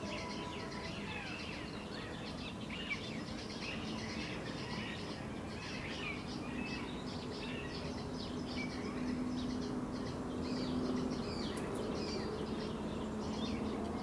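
Background chorus of small birds chirping and twittering, with many short overlapping calls and a low steady hum underneath.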